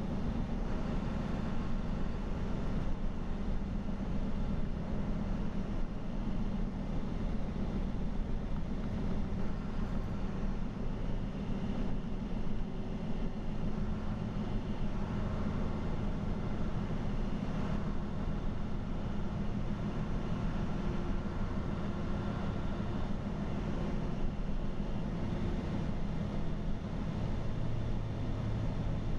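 Steady engine drone and road noise heard inside a vehicle's cab while it cruises on the highway, with a constant low hum.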